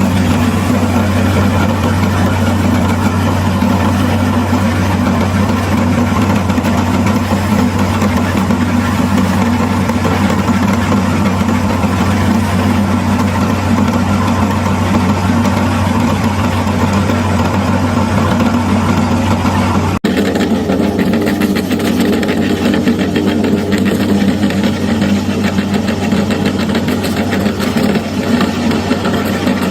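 Electric meat grinder's motor running steadily with a low, constant hum, broken once by a brief gap about two-thirds of the way through.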